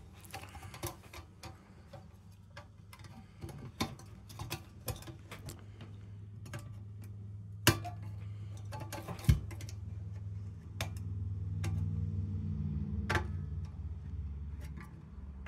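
Scattered clicks and light knocks of small metal lantern parts being handled, over a low steady hum that grows louder for a few seconds near the end.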